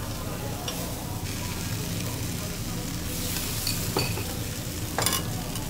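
Thin monjayaki batter sizzling on a hot iron teppanyaki griddle, with a metal spatula scraping the plate. Two sharper scrapes come about four and five seconds in.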